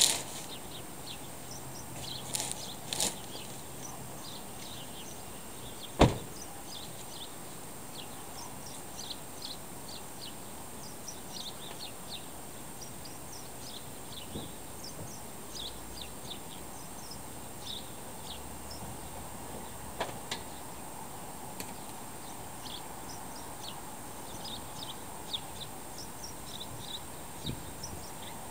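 A car door shut with a single loud slam about six seconds in, over a steady outdoor background hiss. Short high bird chirps come and go throughout.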